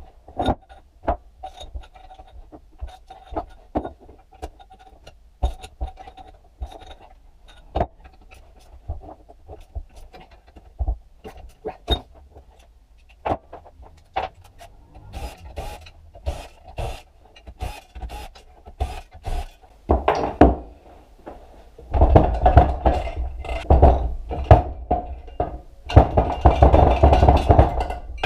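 Scattered metallic clicks and knocks of hand tools working on a motorcycle engine, turning into a louder, dense rattling and scraping about three quarters of the way in.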